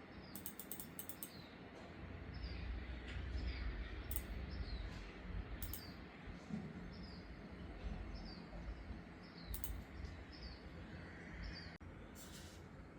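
Sharp clicks of a Logitech G Pro X Superlight 2 Dex wireless mouse: a quick run of about six in the first second, then single clicks every few seconds. Behind them a bird chirps over and over in short falling notes.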